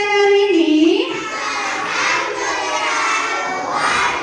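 A drawn-out sung greeting call, held for about a second and then dropping in pitch, followed by a class of schoolchildren answering together in a loud jumble of voices.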